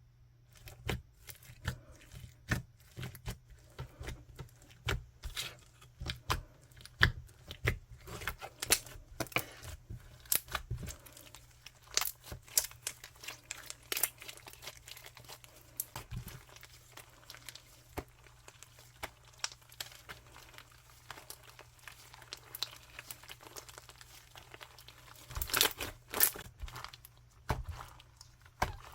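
Slime being pressed, stretched and folded by hand, giving off irregular sharp crackling clicks and pops, with a denser cluster of louder pops near the end.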